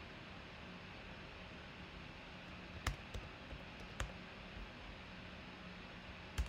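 A handful of sharp clicks from a computer mouse and keyboard over a faint steady hiss; the first comes about three seconds in and the loudest near the end.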